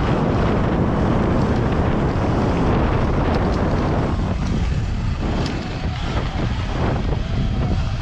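Heavy wind buffeting on the microphone of an electric dirt bike riding along a dirt and gravel trail, a loud steady rumble with the tyres running over loose gravel.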